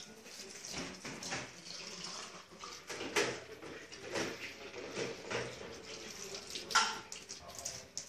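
Tap water running into a stainless steel sink and splashing over a small plastic cup as it is rinsed under the stream. Two brief, sharper sounds stand out, about three seconds in and again near the end.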